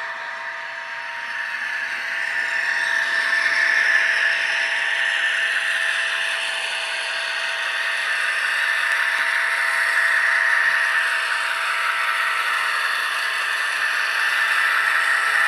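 HO-scale model BR 232 'Ludmilla' diesel locomotive under way, its ESU sound decoder playing the diesel engine sound through the model's small speaker, thin with little bass, mixed with the running rattle of the model's wheels and freight wagons on the track. The sound swells over the first few seconds, then holds steady.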